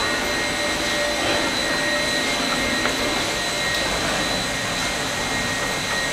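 Steady mechanical hum and hiss with faint constant whining tones, like machinery running without a break.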